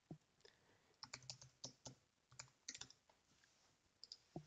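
Faint typing on a computer keyboard: scattered keystrokes in small clusters as a password is entered.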